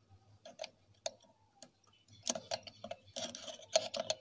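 Screwdriver clicking and scraping against the metal fittings at the carburettor of a CD70 motorcycle: irregular sharp metallic clicks, scattered at first and coming thick and fast from about halfway through.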